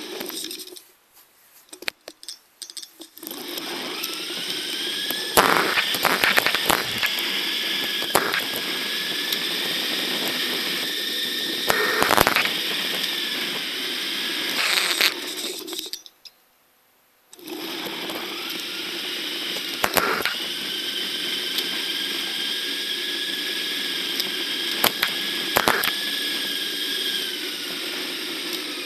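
Riding noise of a Radon mountain bike, knobby tyres on tarmac with wind and frame rattles, played back eight times faster, so it comes out as a steady high whirring noise with frequent sharp clicks. The sound cuts out briefly near the start and for about a second past the middle.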